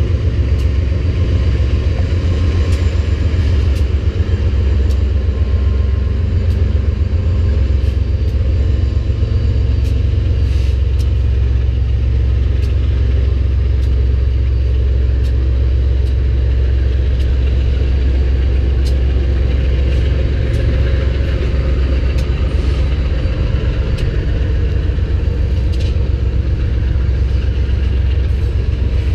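A freight train's tank and hopper cars rolling past on the mainline: a loud, steady low rumble with scattered sharp clicks.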